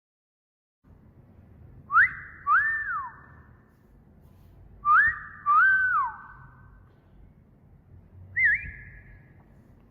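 Wolf whistle repeated twice, each a quick rising note followed by a held note that falls away, about three seconds apart, then a short rising whistle near the end.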